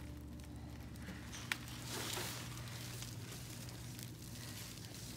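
Faint rustling and crackling of hands handling a dense, root-bound peace lily root ball, with one sharp click about a second and a half in, over a low steady hum.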